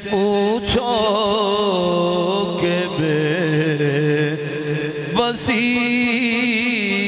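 A man singing an Urdu naat (devotional poem) solo into a microphone. He draws out long held, ornamented notes with vibrato, and starts a fresh phrase just under a second in and again about five seconds in.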